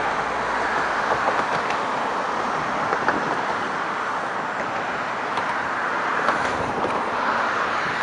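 Steady noise of road traffic, the tyres of passing cars swelling and fading now and then.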